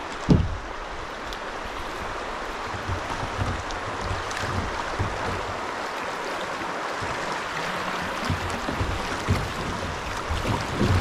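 Rushing river water around a kayak running small rapids, a steady wash, with a sharp low thump about a third of a second in and softer low bumps scattered after it.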